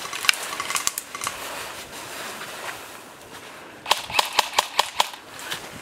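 Airsoft gun firing a rapid string of about eight sharp shots, starting about four seconds in, after a few scattered clicks earlier on.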